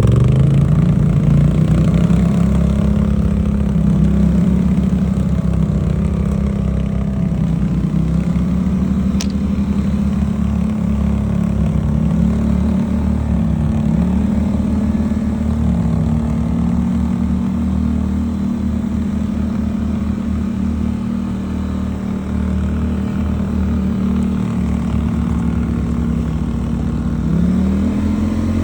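ATV engine running under way, its pitch mostly steady, dipping and picking up again a few times as the throttle is eased and reapplied, and climbing near the end.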